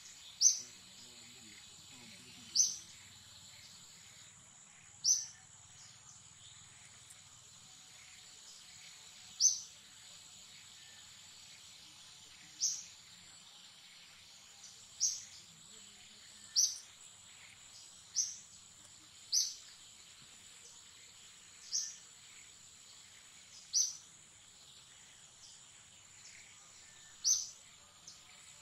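Forest ambience: a steady high insect drone, with a short, sharp high-pitched call repeating about a dozen times at uneven gaps of two to four seconds.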